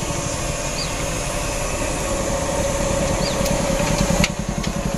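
Small single-cylinder commuter motorcycle engine running as the bike approaches, growing slowly louder, then its note drops about four seconds in as the rider eases off to pull up.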